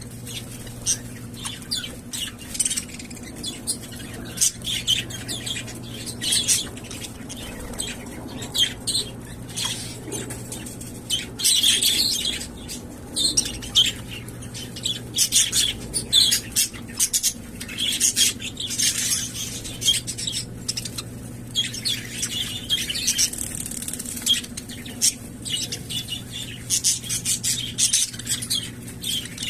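Pet budgerigars chirping and chattering continuously while bathing, with many short wing flutters and splashes mixed among the calls.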